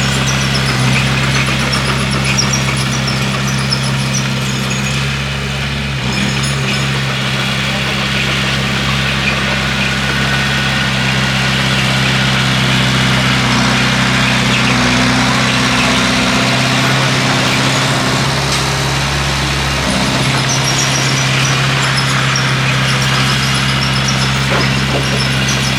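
A bulldozer's diesel engine runs steadily under load, its note shifting slightly a few times. Occasional faint high squeaks sound over it.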